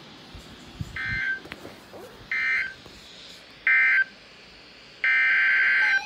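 Weather radio speaker sounding the warbling digital SAME/EAS data bursts: three short identical bursts about a second and a half apart, the end-of-message code for the tornado warning. Near the end a longer burst starts, the header of the next alert.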